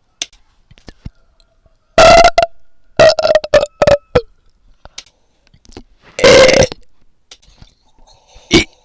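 A person burping loudly on purpose: one burp about two seconds in, a choppy string of short burps around three to four seconds, a longer burp a little past six seconds, and a short burp near the end.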